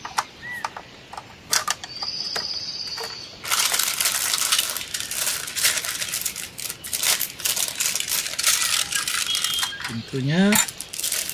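Hard plastic toy playset pieces clicking and tapping as they are handled and fitted together, followed from about three and a half seconds in by a long stretch of crinkly plastic-bag rustling.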